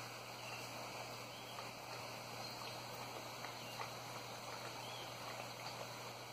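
Doberman lapping coconut water from a stainless steel bowl: faint, scattered wet laps and ticks of tongue against metal over a steady low hum.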